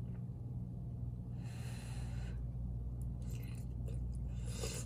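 A person eating instant ramen noodles: chewing and breathy slurping noises in two stretches, over a steady low hum.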